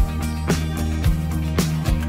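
Background music with a steady beat, about two beats a second, over held pitched notes.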